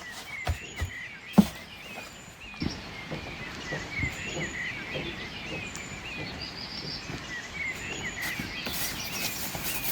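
Small birds chirping repeatedly, short quick calls, with a few sharp knocks in the first second or two, the loudest about a second and a half in. A steady rushing hiss grows louder near the end.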